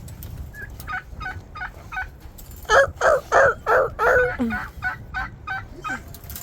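Turkeys calling in a run of short repeated notes, about three a second. The notes start faint about a second in, are loudest for a couple of seconds near the middle, then carry on more quietly.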